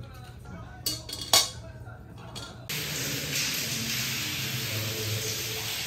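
A stainless steel colander clinks twice against a glass bowl, the second knock the louder. About three seconds in, a loud, steady hiss of rushing water cuts in from a burst water pipe.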